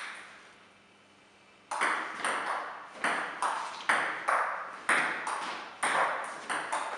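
Table tennis rally: the ball clicking off the paddles and the table, a fast even run of about two to three sharp clicks a second, with a brief echo after each in the hall. One lone click comes first, then a short pause before the rally starts.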